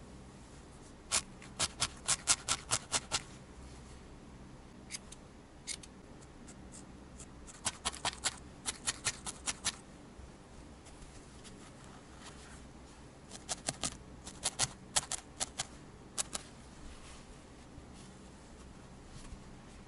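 Felting needle stabbing repeatedly into wool roving, attaching a needle-felted cat ear. The pokes are crisp clicks that come in quick bursts of about five a second, with pauses between the bursts.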